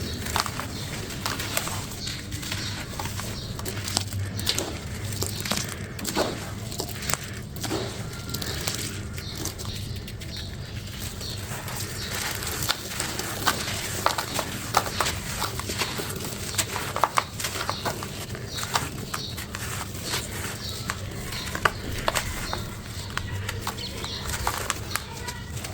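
Crunchy ASMR crumble pieces being crushed and crumbled, giving dense, irregular crackles and crunches over a low steady hum.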